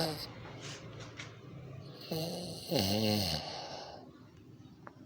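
Snoring: the tail of one snore at the start, then one long buzzing snore about two seconds in whose pitch drops as it ends.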